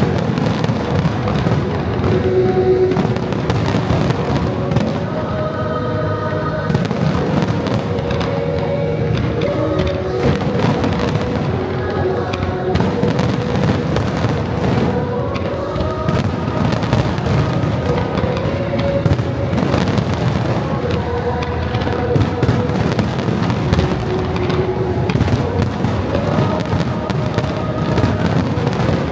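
Aerial fireworks bursting in a rapid, continuous barrage of bangs and crackles, over the show's synchronized music playing from loudspeakers.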